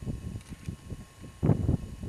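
QJ-class 2-10-2 steam locomotive working a freight train, its exhaust chuffing in a quick run of beats, with one louder chuff about one and a half seconds in.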